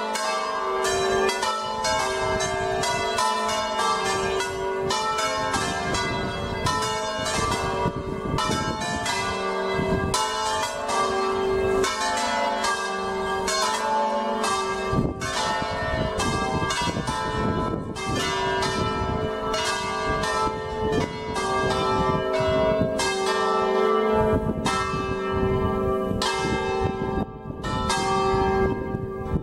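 A five-bell church ring in G (G3 to D4), electrically swung in the Veronese style, all the bells ringing together with rapid, overlapping strikes. Wind rumbles on the microphone underneath.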